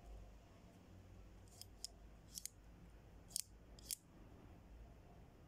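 Cohiba double-blade cigar cutter's stainless steel blades sliding open and shut, giving a handful of faint, sharp metallic clicks.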